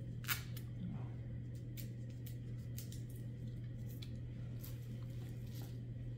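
Faint rustling and light clicks of gloved hands and a disposable isolation gown handling a wound dressing on a training manikin's leg, over a steady low hum. One sharper click comes less than a second in.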